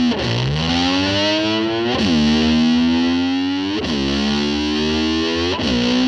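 Distorted electric slide guitar swooping up in pitch and holding a note, again and again, about every two seconds, in imitation of a motorcycle revving.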